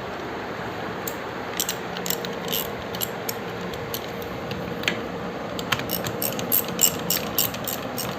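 Sharp, irregular metallic clicks and taps of hand tools working on the scooter engine, growing busier in the second half, over a steady background hum.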